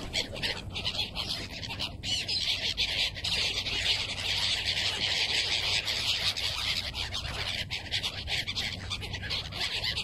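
A flock of gulls calling all at once: a dense, unbroken chorus of many overlapping high calls, a little louder in the middle.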